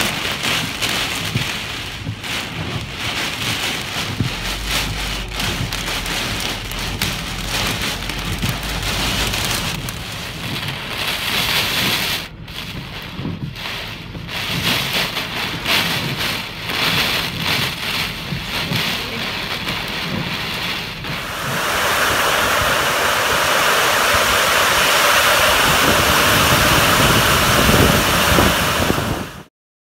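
Monsoon thunderstorm: heavy rain and gusting wind, with a low rumble in the first several seconds. About two-thirds of the way through it becomes a louder, steady downpour on pavement, which cuts off suddenly near the end.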